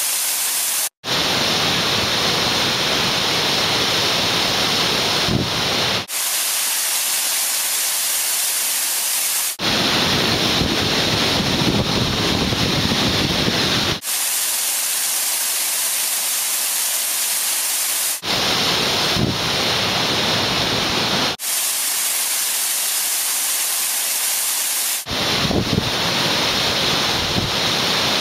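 Waterfall on a mountain stream, water rushing steadily over rock. The sound changes abruptly every three to four seconds, switching between a fuller, deeper rush and a thinner, hissier one.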